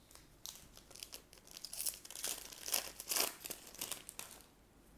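A foil trading-card booster pack being torn open and crinkled in the hands: a run of irregular crackling, loudest in the middle, that stops about four and a half seconds in.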